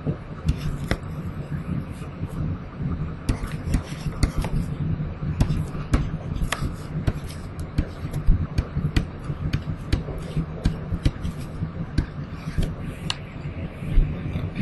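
A steady low hum with many irregular small clicks and taps, typical of a stylus writing on a drawing tablet.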